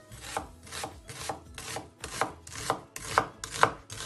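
A kitchen knife chopping an onion on a wooden cutting board, a stroke about twice a second, the knocks growing louder as it goes.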